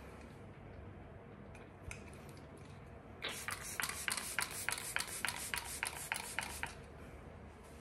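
A pump spray bottle being spritzed in quick succession onto a cotton pad, with short hissing puffs at about five a second for some three and a half seconds, starting about three seconds in.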